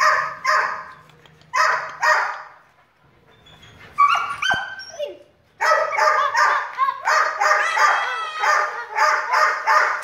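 Young dogs yapping with short, high-pitched barks: a few at first, a gliding whine-like yelp about four seconds in, then a fast, steady run of yaps about three a second through the second half.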